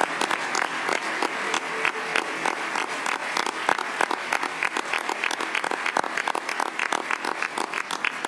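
Large crowd applauding: a dense, steady patter of many hands clapping.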